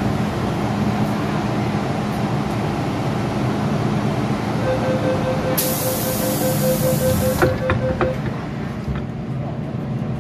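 MTR M-Train humming steadily while stopped. About five seconds in, a rapid beeping door-closing warning starts. A burst of air hiss follows, then a few thuds as the doors close.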